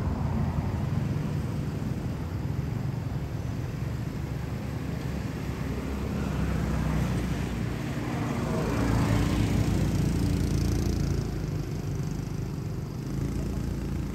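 Steady low rumble of a motor vehicle's engine, swelling louder a little past halfway as it passes, then fading again.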